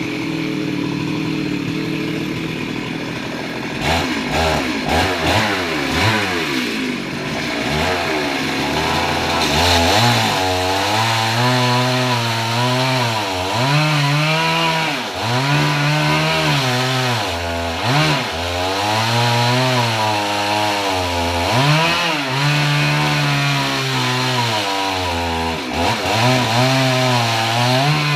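Chainsaw cutting through tree wood. The engine runs fairly evenly for the first few seconds, then its pitch rises and dips again and again as the saw bites into the wood and frees up.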